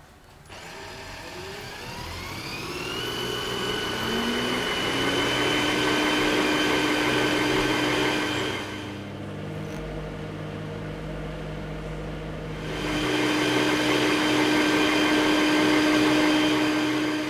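Electric motor of a household appliance spinning up with a rising whine, then running at a steady pitch. About halfway through it drops to a quieter, lower hum for a few seconds, then comes back up to its full whine.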